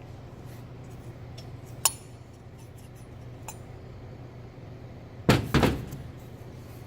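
Metal clinking as an EGR valve is being taken apart: one sharp ringing clink about two seconds in, a light tick a little later, then a loud clatter of two quick metal knocks just past five seconds, over a steady low hum.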